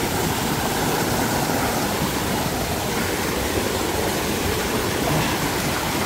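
Mountain stream rushing over rocks in small cascades: a steady, even rush of water.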